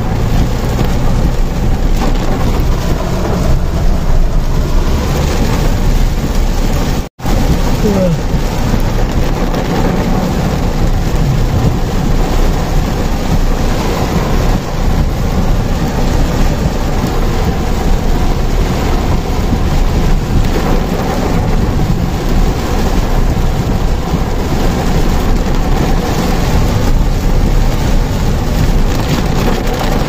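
Heavy rain beating on a moving car, heard from inside the cabin as a loud, steady hiss and patter, with a brief break about seven seconds in.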